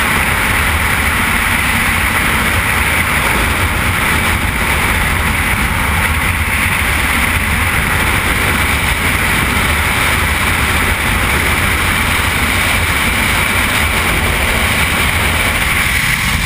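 Loud, steady rush of freefall wind blowing over a skydiver's helmet-camera microphone.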